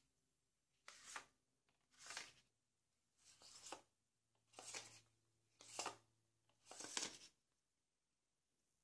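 Paper feathers of a scale-model wing rustling as the wing is spread and folded by hand: six short swishes about a second apart.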